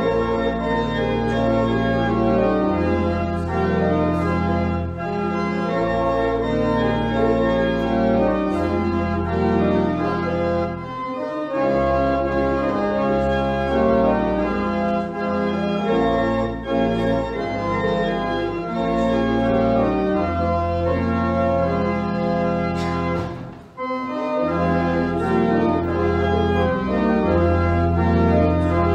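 Church organ playing a hymn in full, held chords over a deep bass line, with a brief break about two-thirds of the way through.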